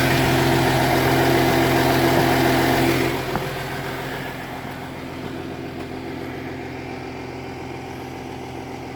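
Diesel engine of a 2010 Audi Q7 TDI idling with an exhaust leak, a steady hum with hiss over it. About three seconds in the sound drops to a quieter steady idle, with a faint click.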